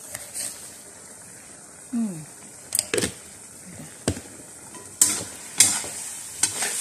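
Metal ladle stirring in a metal wok of meat simmering in soy sauce over a light sizzle, with sharp clinks and scrapes against the pan from about three seconds in, the loudest near the end. A brief falling tone about two seconds in.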